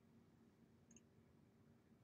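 Near silence: faint room tone, with one short, faint click about a second in.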